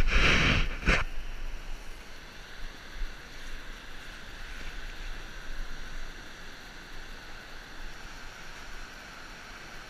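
Ocean surf breaking and washing up the beach, a steady hiss, with low wind rumble on the microphone. A loud burst of rustling noise fills about the first second.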